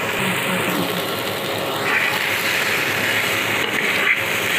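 Potato and vegetable pieces sizzling in oil in a frying pan while a metal spatula stirs and scrapes them against the pan, with a few sharper scrapes near the end.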